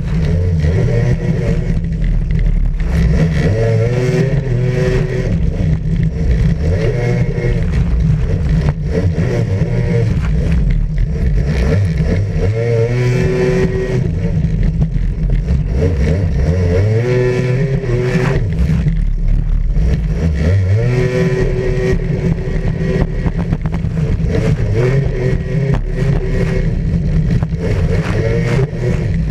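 Racing jet ski's engine running at high revs, heard from on board. Its pitch climbs and drops several times as the throttle is worked.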